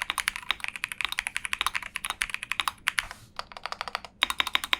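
Fast typing on a stock Monsgeek M3W aluminium TKL mechanical keyboard with Akko Cream Yellow V3 Pro switches: a quick run of keystroke clacks, broken by short pauses about three seconds and four seconds in.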